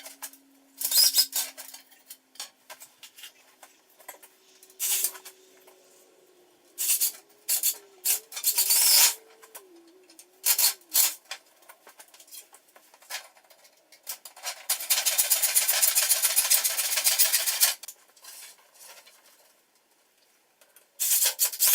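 Irregular scraping and rubbing strokes of hand work on the cart, short strokes of a second or less with one longer stretch of continuous rubbing about two-thirds of the way through.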